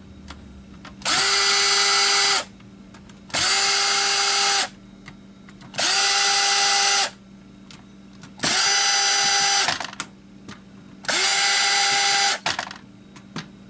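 Cordless drill-driver backing tiny screws out of a PlayStation 2's metal shield in five short runs of just over a second each. Each run spins up quickly to a steady whine, with small clicks in the pauses between runs.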